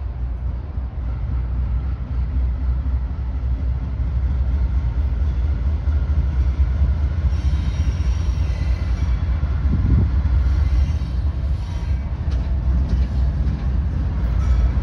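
Norfolk Southern diesel locomotive approaching at slow speed, its engine and wheels a deep steady rumble that grows louder as it nears. A faint high squeal from the wheels comes through about halfway.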